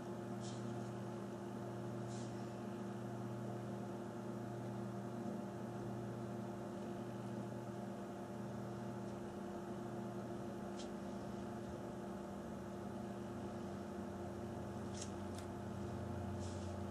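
Steady low electrical hum from bench equipment, with a few faint, light taps scattered through, the kind a fingertip makes on a smartphone touchscreen during a touch test.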